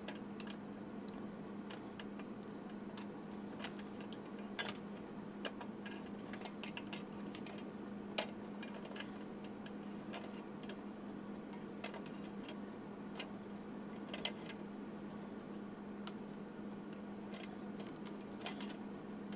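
Light, irregular clicks and taps of small parts being handled as wire is pulled out through a hurricane lantern for fitting a solar LED light, over a steady low hum.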